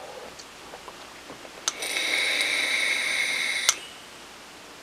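A vape being fired and drawn on: a click of the fire button, then a steady whistling hiss of the hit for about two seconds, cut off by a second click as the button is released.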